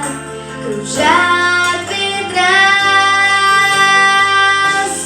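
A young girl singing over a backing track, sliding up into a phrase about a second in and then holding long notes.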